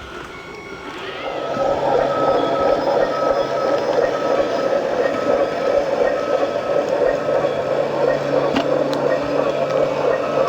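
A vehicle engine sound that rises over the first two seconds and then runs steadily, with a quick, regular beeping over it like a reversing alarm.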